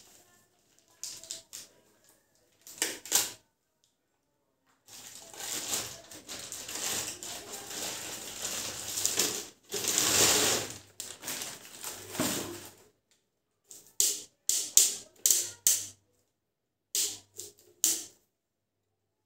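Thin plastic wrapping crinkling and rustling as a pedestal fan's motor head is pulled out of its bag. There is a long stretch of continuous crinkling in the middle and a series of sharp crackles near the end.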